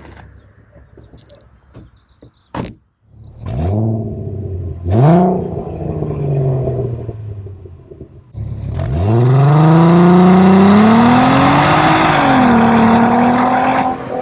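Audi TT mk1's 3.2 V6 engine revving: after a sharp knock, a short rise and fall in pitch, then a long, loud climb in pitch that dips briefly near the end and holds steady.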